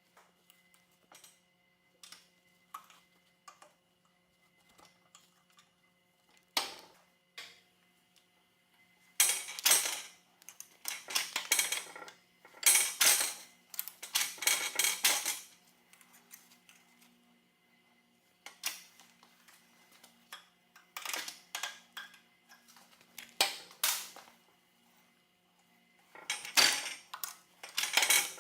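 Bursts of metal scraping and clinking, a second or two each, in three busy spells separated by quieter stretches of small scattered clicks.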